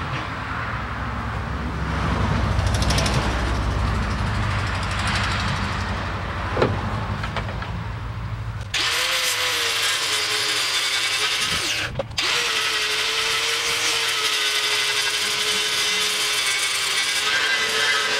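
A low rumble for the first half, then a handheld power tool starts abruptly on the truck's bare cab sheet metal and runs steadily with a high hiss and a held whine, briefly cutting out about three seconds later.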